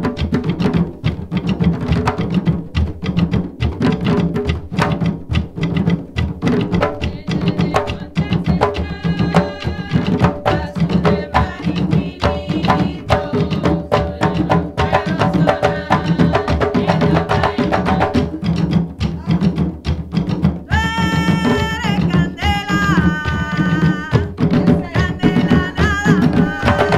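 Puerto Rican bomba drumming on barriles: the buleo drums keep a fast, steady rhythm while the primo drum's accents mark the dancer's movements. About two-thirds of the way through, singing comes in over the drums with long held notes.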